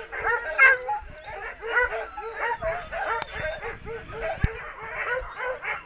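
A chorus of many harnessed sled dogs barking and yipping at once, overlapping high calls without a break. A single knock about three-quarters through.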